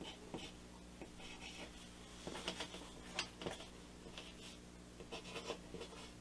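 Pencil writing on paper: faint, uneven scratching strokes as letters are written, a few of them sharper than the rest.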